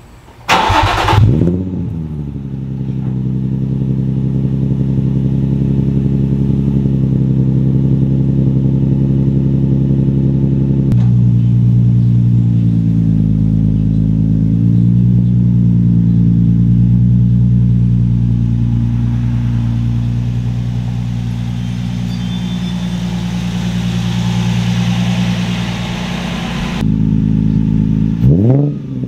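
Nissan 350Z's VQ35DE V6, breathing through Berk resonated test pipes, cold-starting in a garage: it cranks, catches with a rev flare and settles into a steady idle. A quick rev near the end.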